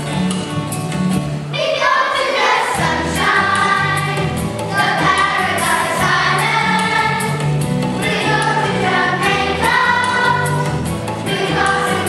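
A song for a stage musical: a group of voices singing together over a backing track with a steady bass line. The voices come in about a second and a half in and sing in phrases with short breaks between them.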